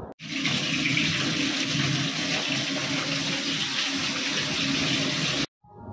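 Fish frying in hot oil in a metal kadai on a gas stove: a steady, loud sizzle that starts suddenly and cuts off shortly before the end.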